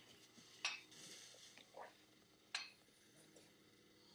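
Near silence broken by two short, faint clinks about two seconds apart, with a softer one between them: ice knocking in an insulated drink tumbler as it is sipped through a straw.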